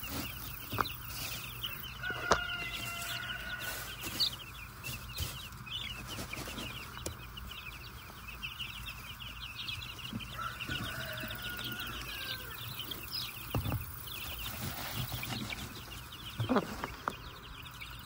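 Dozens of five-day-old Cornish Cross meat chicks peeping constantly in short, high chirps, with a few brief knocks and rustles as the plastic feeders are handled in the wood-shaving bedding.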